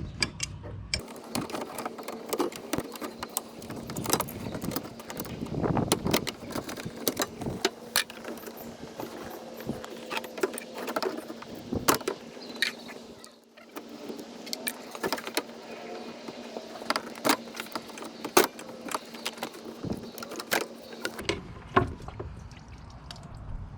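Irregular metallic clicks, clinks and knocks of pliers and a hose clamp as the upper radiator hose is worked off the radiator neck, over a steady low hum.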